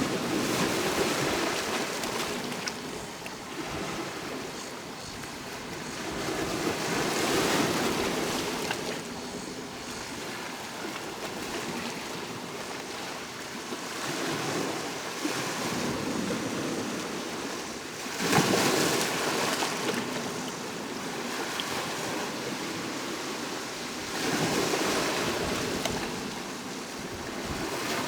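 Sea surf: waves breaking and washing up the shore, a new surge about every five or six seconds. The sharpest crash comes about two-thirds of the way through.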